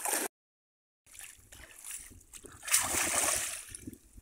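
Shallow floodwater splashing and sloshing around a bamboo cone fish trap as it is worked by hand and people wade beside it. The sound cuts out for under a second near the start, then comes in scattered splashes with the loudest about three seconds in.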